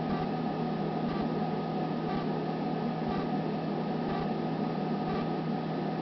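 Ameritron AL-82 linear amplifier's stock cooling blower running steadily. It is hard-mounted to the chassis, so its vibration resonates through the enclosure as an irritating noise: a constant low hum with a steady higher whine over rushing air.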